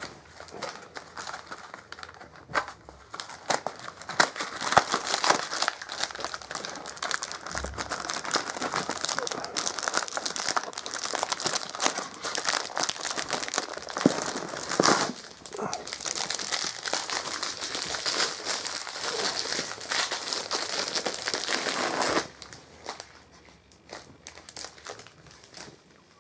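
Rabbit gnawing and crunching a dry treat held in a hand, close up: a dense, steady run of small crackling bites that stops abruptly near the end, leaving only faint ticks.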